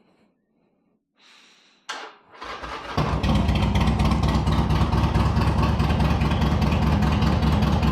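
Harley-Davidson Sportster 1200's air-cooled V-twin cold-started: the starter cranks for about a second, starting about two seconds in, then the engine catches and settles into a loud, steady idle.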